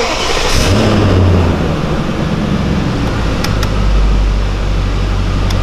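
BMW E39 540i's 4.4-litre M62 V8 starting and idling steadily. The idle is higher at first and settles lower after a couple of seconds.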